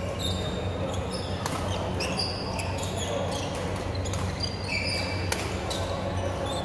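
Badminton rally: sharp racket strokes on the shuttlecock, a couple of them loud, amid many short squeaks of sports shoes on the court floor, over a steady low hum in a large hall.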